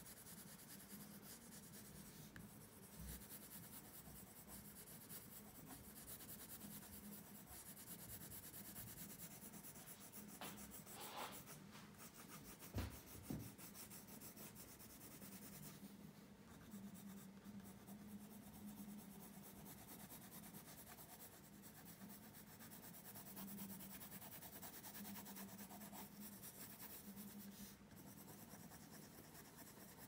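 Colored pencil drawing on paper: faint, continuous scratchy strokes of shading. Two short soft knocks about halfway through.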